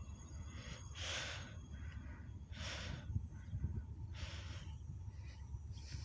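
A person's breathing close to the microphone, a breath about every one and a half seconds, over a low steady rumble of wind on the microphone.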